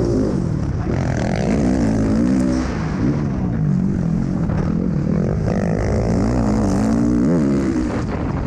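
Motocross race bike's engine heard from the rider's helmet camera, its pitch rising and falling again and again as the throttle is opened and shut through turns and jumps.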